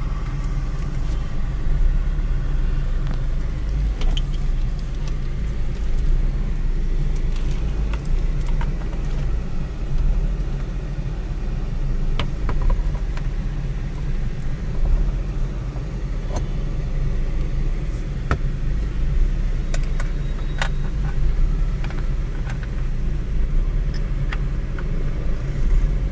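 Steady low rumble, with scattered light clicks and knocks as a car's steering wheel is fitted back onto the column.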